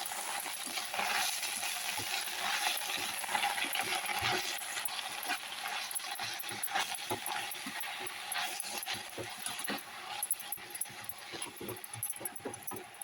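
Sahjan (drumstick) bhaji cooking in a pan, a steady sizzle with scattered light clicks and scrapes of a utensil.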